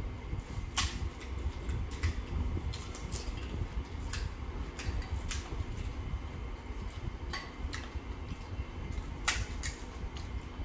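Crisp cracks and crunches of hollow fried fuchka (panipuri) shells being broken open with the fingers and bitten. About ten sharp snaps come at irregular intervals over a steady low hum.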